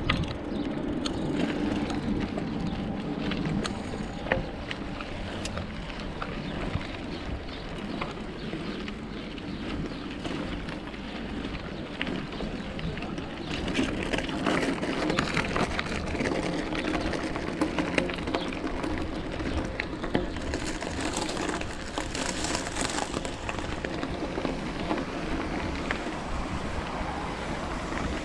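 Riding a bicycle with a chest-mounted camera: steady wind and rolling noise with scattered small clicks and rattles.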